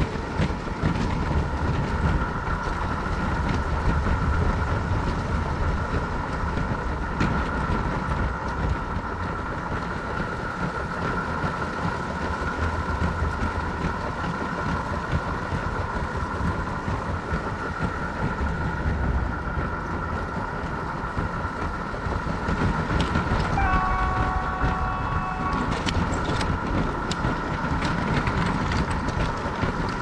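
LEGO train locomotive running steadily, its PFX Brick sound module playing an engine sound over the rumble and clicking of the wheels on plastic track. About 24 s in, the module sounds a horn for about two seconds.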